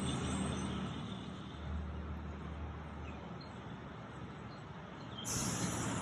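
Outdoor background noise: a steady low rumble of road traffic under an even hiss, with a louder rush of high hiss starting suddenly about five seconds in.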